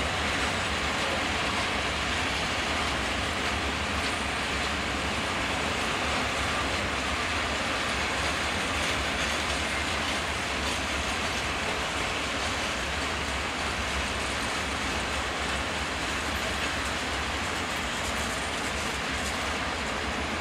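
Long freight train of open-top wagons rolling past steadily, with the wheels running on the rails.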